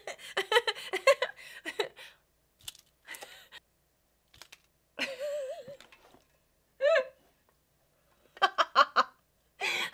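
A woman laughing in bursts: a long fit at the start, a few short ones with pauses between, and another quick burst near the end.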